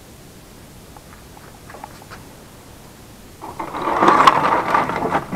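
Scrap circuit boards and tangled wires rustling and clattering as a heap is rummaged by hand to pull out an old computer motherboard. The handling starts about three and a half seconds in, after only a few faint clicks.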